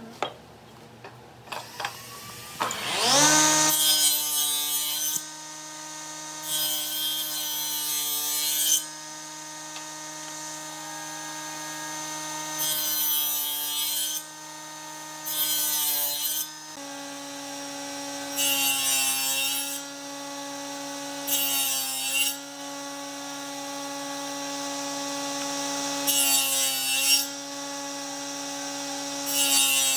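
A woodworking power tool's motor spins up about three seconds in and runs steadily, its pitch dipping a little about halfway. Over it come about eight bursts of hiss, each a second or two long, as the tool works the wood in repeated passes.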